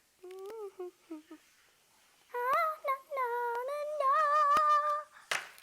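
A young girl humming a wordless tune: a few short hums, then longer held, wavering notes, with a few light clicks among them.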